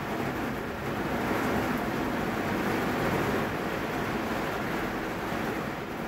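Steady rain falling, an even hiss with no separate drops or knocks standing out.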